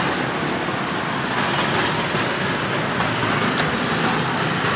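Steady road traffic noise, a continuous even rumble and hiss from passing vehicles on the street.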